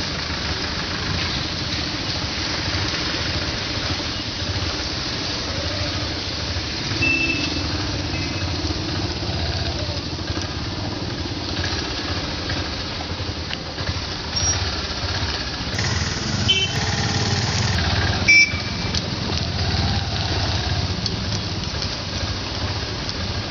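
Slow street traffic: car and motorcycle engines running in a steady low rumble with tyre and road noise. A short, sharp beep about 18 seconds in is the loudest moment.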